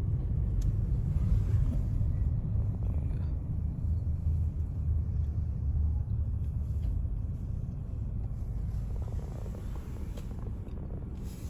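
Car driving on the road: a low, steady rumble of engine and road noise, easing slightly over the last few seconds.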